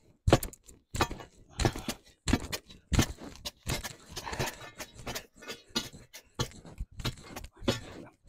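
A steel digging bar and a shovel blade jabbed repeatedly down into dry concrete mix and gravel around a wooden post, a sharp crunching strike roughly twice a second: the post hole being dry-packed.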